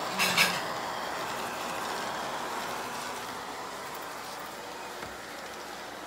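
Silvercrest robot vacuum cleaner running with a steady mechanical noise from its suction fan and brushes. A short, sharp sound about a quarter of a second in is the loudest moment.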